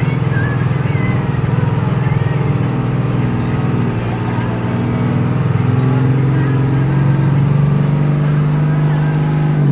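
Hino AK1J bus's diesel engine pulling under load, its note climbing slightly over several seconds, then dropping away suddenly at the very end as the driver comes off the throttle or changes gear.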